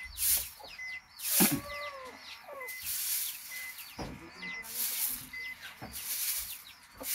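Small birds chirping over and over, with chickens calling now and then. A short, high peep repeats a little more than once a second through it.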